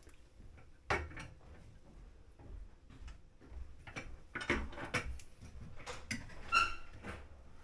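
Irregular clicks and knocks of hand work with tools and parts. The sharpest knock comes about a second in, and there is a brief squeak about two-thirds of the way through.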